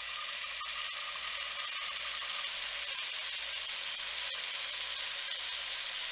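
Rainstick being tipped, its pebbles trickling down inside with a steady, even rain-like hiss and a few faint ticks.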